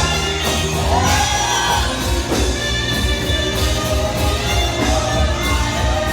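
Loud live worship music from a band, with a pulsing bass and a lead melody that slides between notes.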